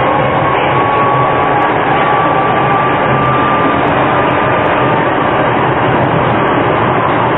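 Tram running along the street, heard from inside the passenger saloon: a steady, loud rolling noise of the car on the rails. A faint thin high whine rises slightly through the first half.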